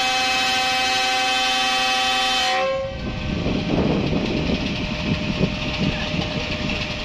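Pakistan Railways GEU-40 diesel locomotive's multi-tone air horn, heard at close range, sounding its departure signal as one steady chord that stops about two and a half seconds in. The locomotive's diesel engine then runs with a rough, uneven rumble.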